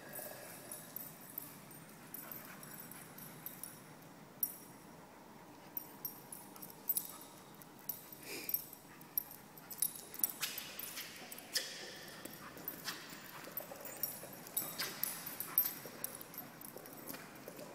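Two dogs play-fighting on a concrete floor: a quick, irregular patter of claws clicking and scrabbling on the concrete, with a brief dog whine about halfway through.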